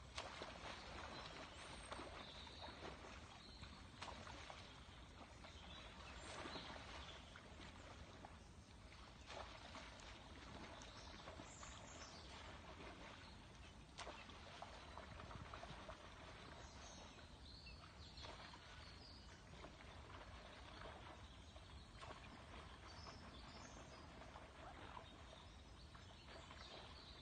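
Quiet river ambience: faint steady water noise with a few faint bird chirps and small splashes or clicks.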